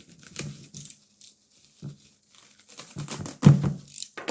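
Shopping bag rustling and crinkling as purchases are unpacked by hand, in irregular bursts, with a louder bump about three and a half seconds in.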